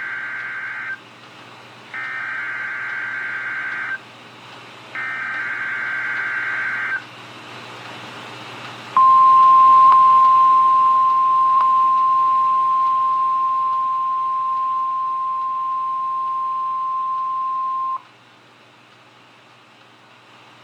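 NOAA Weather Radio alert: three buzzing digital SAME header bursts about a second apart, then the steady 1050 Hz warning alarm tone held for about nine seconds and cut off sharply, all over radio hiss. This is a weekly test of the alarm tone that switches on weather alert receivers.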